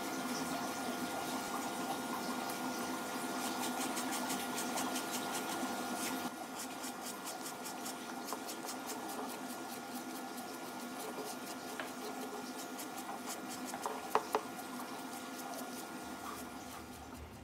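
A wire-bristle suede brush scrubbed quickly back and forth over a suede boot to raise the nap: a fast, scratchy rasp of several strokes a second, which fades in the second half. Two sharp taps about fourteen seconds in.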